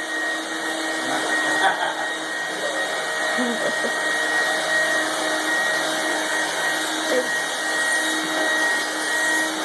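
Vacuum cleaner running steadily, its motor giving a thin high whine over a constant rushing noise.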